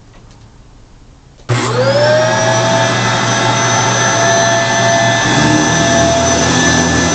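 2006 Kenmore Progressive Intelliclean canister vacuum switched on about a second and a half in, its motor whining up to speed within half a second and then running steadily.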